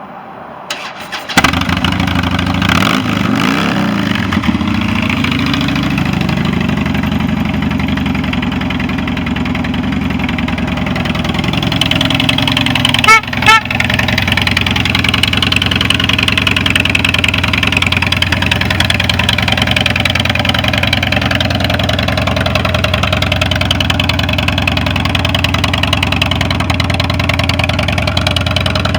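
Harley-Davidson Street Bob V-twin engine starting about a second in, then idling steadily. It gives two quick throttle blips near the middle before settling back to idle.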